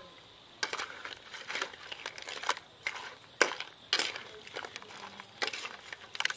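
Whole crabs being stir-fried in a steel wok: a metal spatula scraping and clattering against the pan and the shells in irregular strokes, starting about half a second in.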